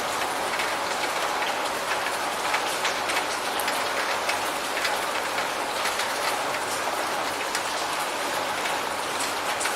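Steady rain falling, a dense even hiss dotted with many small drop ticks. No thunder is heard.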